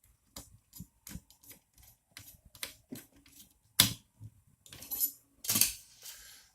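Irregular small metal clicks and rattles of screws and parts being handled and screwed together by hand, with one sharp click about four seconds in and a short rasp a little later.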